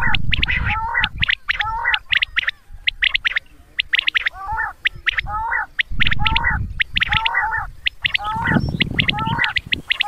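Recorded quail calls used as a hunting lure: rapid series of short, sharp high notes mixed with a lower squawky call repeated roughly every second, over a low rumble.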